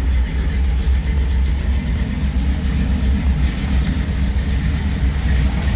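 1965 Chevy Nova's engine idling with a steady, deep, lumpy rumble.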